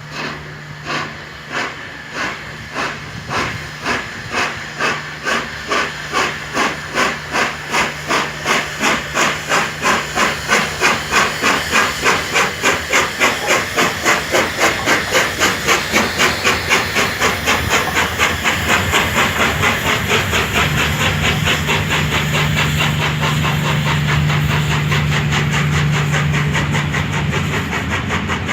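Peppercorn A1 class steam locomotive 60163 Tornado's three-cylinder exhaust beating as it pulls away and accelerates: distinct chuffs about one a second at first, quickening steadily until they blur into a continuous rush of exhaust near the end, with a steady low hum underneath.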